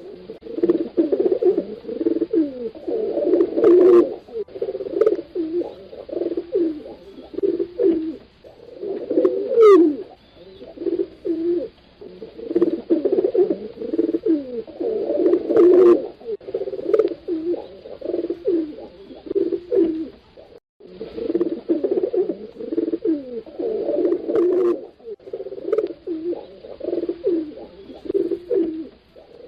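Several pigeons cooing, their low rolling coos overlapping in repeated phrases, with a brief gap about two-thirds of the way through.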